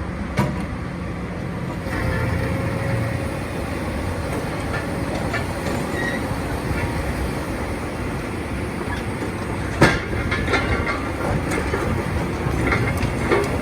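Hydraulic excavator working on demolition: its engine runs steadily under load while debris cracks and crunches. There is a sharp bang about half a second in, a louder one near ten seconds in, and a flurry of knocks near the end.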